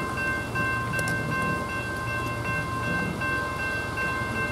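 Railroad grade-crossing bell ringing steadily in a regular repeating rhythm, with a low rumble underneath as a train approaches the crossing.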